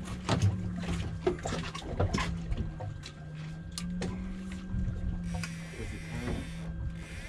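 Steady low hum from the boat's machinery, with water sloshing and scattered clicks and knocks. A stretch of hissing water comes about five seconds in.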